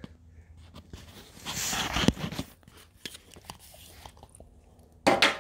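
Rustling, crunching handling noise from the phone being moved about, loudest for about a second near the middle, with scattered light clicks and a second short rustle near the end.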